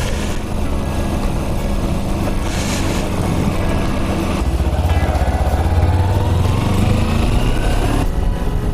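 Motorcycle engine running on the move, with rushing wind, and its pitch rising for a few seconds about halfway through as the bike speeds up.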